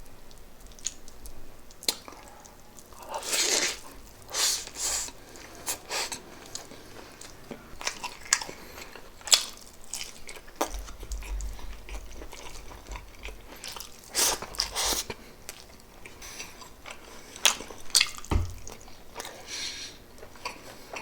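Close-miked mukbang eating sounds: chewing and biting into pork adobo with rice, with irregular wet clicks and smacks and a few louder bursts.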